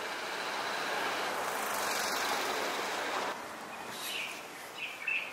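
Street traffic: a passing vehicle's noise swells and then cuts off suddenly about three seconds in.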